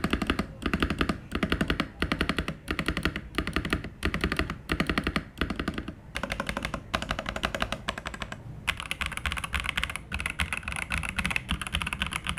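Fast typing on a Zifriend ZA68 mechanical keyboard: quick runs of key clicks with short breaks between them, the keystrokes blending into an almost continuous clatter in the second half.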